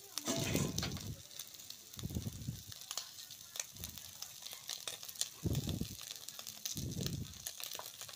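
Small tengra catfish shallow-frying in hot oil in an iron wok: a steady sizzle with quick crackling pops of spitting oil, broken by a few low, muffled bumps.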